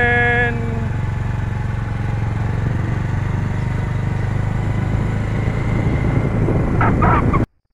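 Engine and road noise from a moving vehicle: a steady low rumble with a rushing haze over it. A brief pitched sound comes right at the start, and the sound cuts off abruptly near the end.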